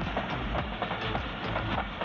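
Pakistan Railways passenger coaches rolling past, with a steady rush of wheel noise and a rapid, uneven run of sharp clacks from the wheels over the rail joints.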